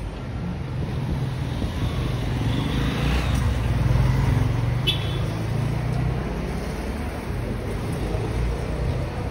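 Street traffic: a motor vehicle's engine drones past close by, growing louder to a peak about four seconds in and then slowly fading, over the general hum of city traffic. A short sharp click sounds about five seconds in.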